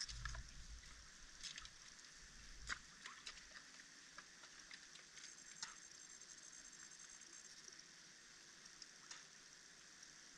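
Near silence: a faint steady hiss with scattered small clicks, and a low rumble during the first few seconds.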